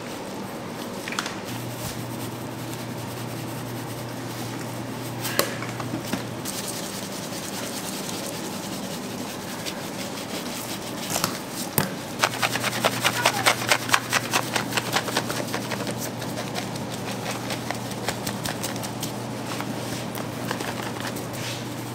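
Gloved hands rubbing and pressing coarse pepper seasoning into a large raw pork shoulder on a stainless steel table, a gritty rubbing sound. About halfway through comes a quick run of sharp taps lasting a few seconds, all over a low steady hum that drops out for a while early on.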